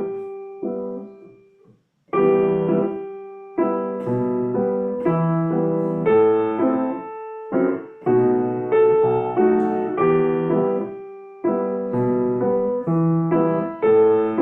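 Piano playing a dance-rhythm accompaniment of bass notes and chords in short rhythmic phrases, with the sustain pedal going down and up with the left-hand bass so the sound is clipped in time with the beat. The playing breaks off briefly about two seconds in, then resumes.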